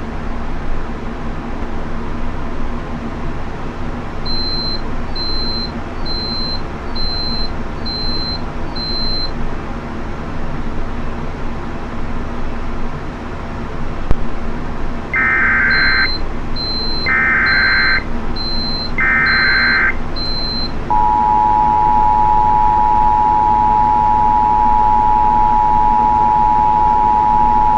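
Emergency Alert System broadcast tones. Three one-second data bursts about a second apart (the SAME header) come about halfway through, followed by the loud, steady two-tone attention signal for the rest. A short high beep repeats about once a second in two runs over a steady background hiss.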